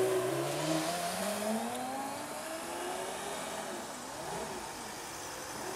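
Supercar engine accelerating, its note climbing steadily for about two and a half seconds, then wavering and dipping briefly before it carries on.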